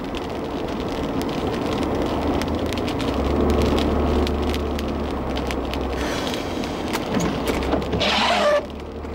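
Car cabin noise while driving: steady road and tyre noise with a low engine drone that swells between about three and six seconds in.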